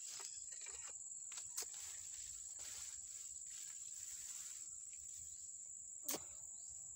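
Steady high-pitched insect drone from crickets or cicadas in the undergrowth, with faint rustling of foliage and two sharp clicks, about one and a half seconds in and near the end.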